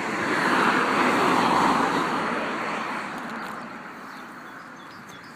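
A car passing on the road, its tyre and engine noise swelling to a peak and then fading away over a few seconds.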